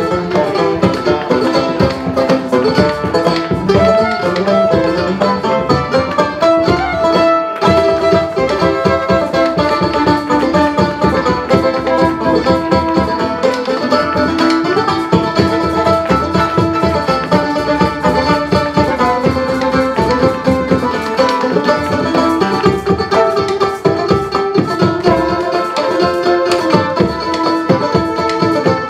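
Live folk band playing an instrumental set of tunes, with plucked strings over a steady beat.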